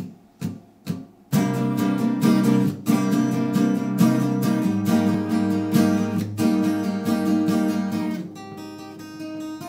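Two acoustic guitars playing an instrumental intro. Three short hits come first, then strummed chords start just over a second in, and near the end the playing drops to softer picked notes.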